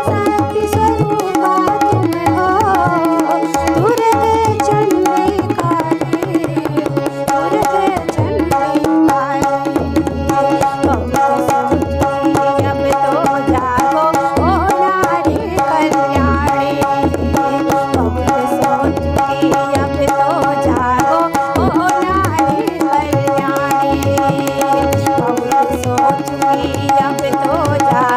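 A woman singing a Hindi folk song to her own harmonium, with tabla keeping a steady rhythm underneath.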